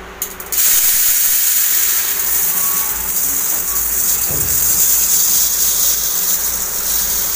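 Raw rice pouring in a steady stream from a 5 kg packet into a metal pot, a continuous hiss of falling grains starting about half a second in, with a brief low bump a little after halfway.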